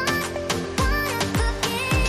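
Background music with a steady beat: a deep kick drum that drops in pitch about twice a second under a melody of bending notes.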